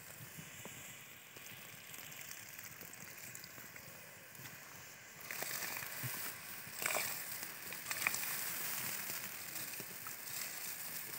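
Rice being tipped from a steel plate into a large pot of simmering biryani gravy over a wood fire: a soft steady hiss, then from about halfway louder sloshing and rustling as the rice pours in, with a few sharp clicks.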